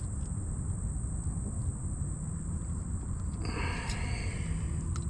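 Steady high-pitched insect trill with a low rumble of wind on the microphone, and a short rustle with a few faint clicks about three and a half seconds in.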